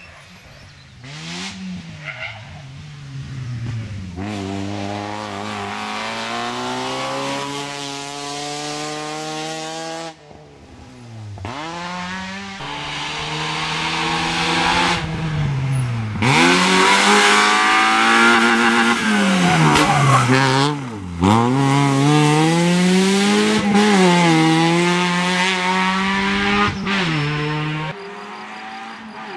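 Opel Astra rally car's engine revving hard at full throttle, its pitch repeatedly climbing and then dropping at each gear change or lift, across several edited passes. It grows louder in the second half as the car comes closer.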